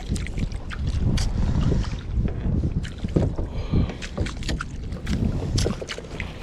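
Wind buffeting the microphone on a fishing kayak, a loud uneven rumble, with water slapping and splashing against the hull and scattered knocks.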